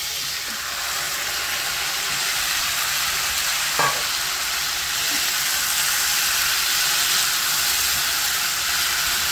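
Mutton pieces in curry gravy sizzling steadily in a hot frying pan of oil with fried onions, stirred with a wooden spatula. A single light knock a little under four seconds in.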